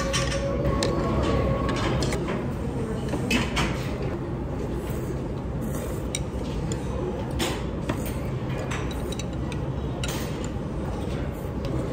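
Noodles being slurped in mouthfuls, with chopsticks and dishes clicking now and then over a steady hum of restaurant room noise.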